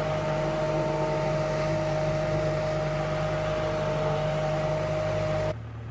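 Skid steer's engine running steadily under load, with a high steady whine over a low hum; about five and a half seconds in it drops suddenly to a quieter, lower hum.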